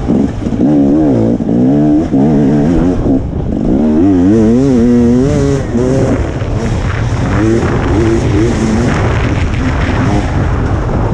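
KTM 300 XC two-stroke dirt bike engine revving, its pitch rising and falling over and over as the throttle is worked on and off through the trail.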